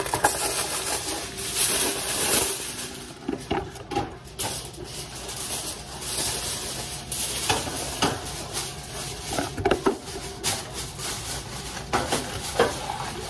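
Plastic packaging rustling and crinkling, densest in the first few seconds, with scattered light knocks and clatter of kitchen items on the counter.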